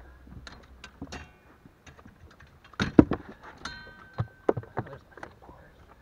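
Knocks and clunks of gear being handled against the boat's hull and deck, the loudest a heavy thump about three seconds in, followed by a short ringing tone. A low hum stops about a second in.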